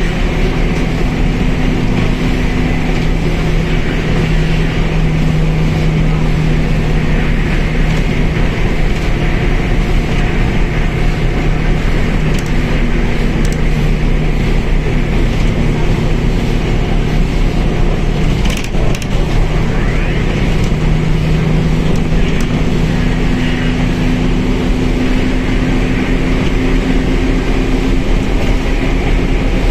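Mercedes-Benz OF1721L bus's diesel engine running steadily, with a steady low drone. There is one sharp knock about 19 seconds in.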